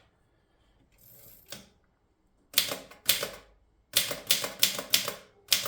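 Typebars of a 1911 Stoewer Model 5 manual typewriter striking the platen: a faint rustle and click, then two separate key strikes, a quick run of about six, and one more near the end, as a working machine is tried out.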